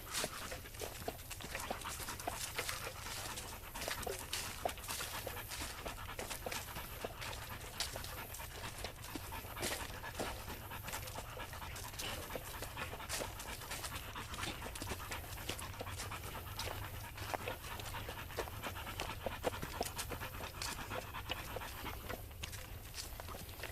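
Dog panting steadily, with many small sharp crackles scattered throughout.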